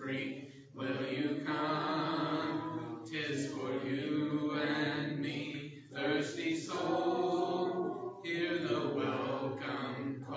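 Church congregation singing a hymn a cappella, with no instruments, in sustained phrases with short breaks between them every two to three seconds.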